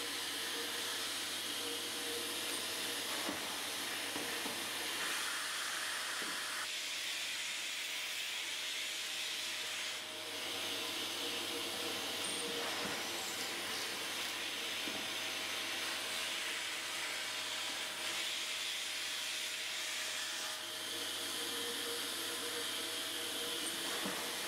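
Festool CTL 26 dust extractor running with a steady hiss as its hose draws at the workpiece, while a cordless drill bores into the wood at times; a few faint knocks.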